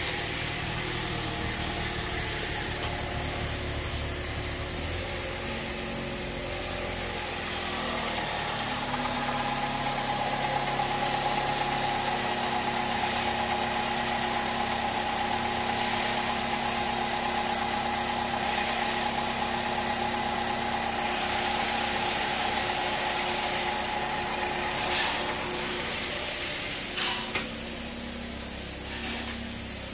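2010 Dodge Avenger's 2.4-litre dual-VVT four-cylinder engine idling steadily.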